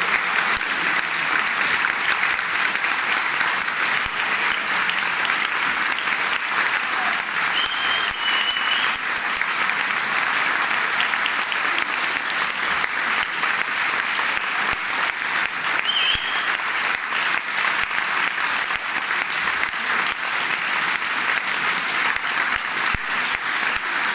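Audience applauding steadily, a dense even clapping. Short high whistles cut through it about eight and sixteen seconds in.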